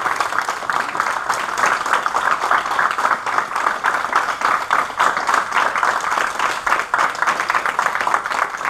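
A group of people applauding steadily with dense, continuous clapping, celebrating a jiu-jitsu black belt promotion.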